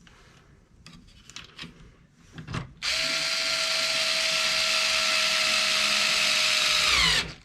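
Small cordless power driver running steadily for about four seconds, driving a screw back into the plastic cover of an RC truck's axle; its whine sags slightly just before it stops. Light clicks of small parts being handled come before it.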